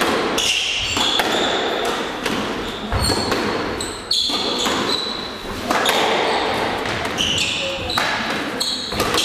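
Squash rally: the ball smacks off rackets and the court walls roughly every second, with sneakers squeaking on the wooden court floor between shots.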